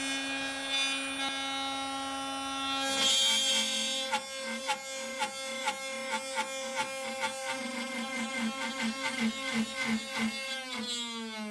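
CNC router spindle and half-inch bit cutting wood with a steady whine. From about three seconds in, the bit knocks and chatters in a rapid series as the workpiece, which has started sliding, shifts under the cut. Near the end the spindle winds down with a falling whine.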